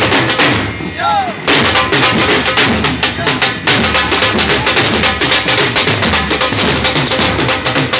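Several Punjabi dhols played together with sticks, beating a fast, dense rhythm. The drumming fills out with heavier bass strokes from about a second and a half in.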